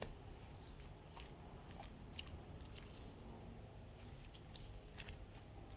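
Faint, scattered sticky clicks and squishes of homemade glue slime being stretched and kneaded by hand, over a low room hum.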